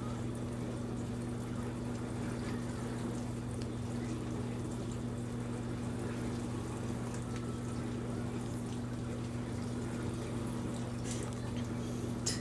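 Steady low hum over a soft, even hiss, with a couple of faint clicks near the end.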